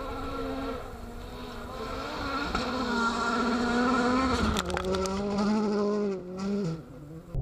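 A rally car's engine revving hard at speed, its note climbing and getting louder, then dropping in pitch with an upshift about four and a half seconds in, marked by a few sharp cracks. Near the end the note falls away and fades.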